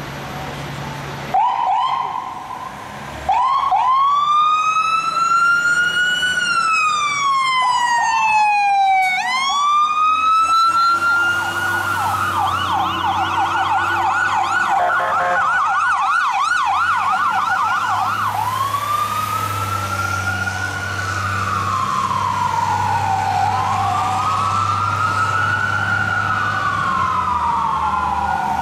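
Fire truck electronic sirens sounding a slow rising-and-falling wail. About ten seconds in the wail switches to a rapid yelp for several seconds, then returns to the wail, with a second siren's wail overlapping it near the end. A steady low drone runs underneath from the yelp onward.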